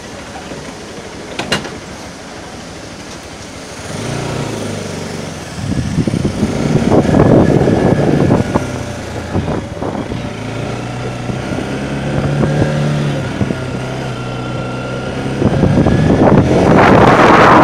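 Bajaj Pulsar NS200 single-cylinder engine ticking over, with a sharp click about a second and a half in. About four seconds in it picks up, then is revved in surges as the bike pulls away and runs on steadily. Near the end, wind noise on the microphone builds and becomes the loudest sound.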